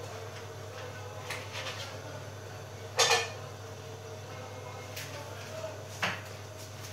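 Beko front-loading washing machine running with a steady low hum, broken by a few sharp clinks and knocks, the loudest about three seconds in.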